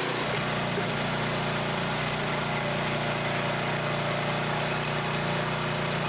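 Mini excavator engine running steadily while it works the ground.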